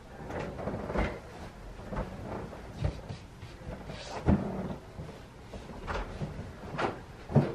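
Bedding rustling and a run of irregular dull knocks and bumps as a person shifts around on a bed and reaches down between the mattress and the wall. The loudest bump comes about four seconds in, another just before the end.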